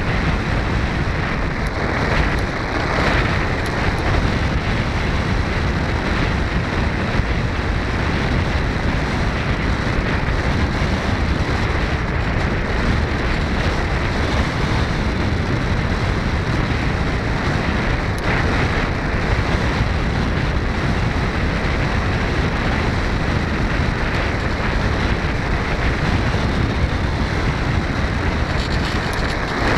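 Steady wind rush over the onboard camera's microphone of a foam RC model plane in flight.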